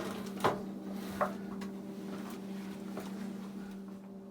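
A few short knocks and clicks from parts being handled at the dryer, over a steady low hum.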